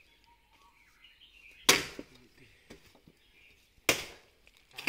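Two heavy chops of a long-handled iron blade biting into a wooden log, about two seconds apart, followed by a lighter knock near the end.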